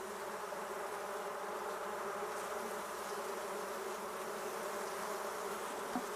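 Honey bees buzzing on the comb: a steady hum of many bees.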